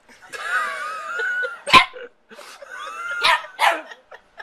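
A frightened dog whining and barking: a wavering, high whine, one sharp bark near the middle, then more whining and two short barks near the end.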